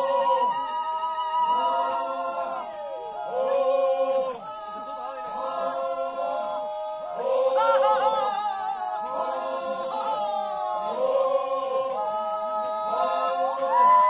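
A group of voices singing together without instruments, in held notes that slide from pitch to pitch.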